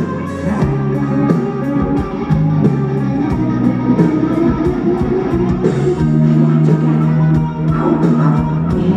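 Live rock band playing, electric guitars to the fore over a steady cymbal-and-drum beat, heard from within the audience of a concert hall.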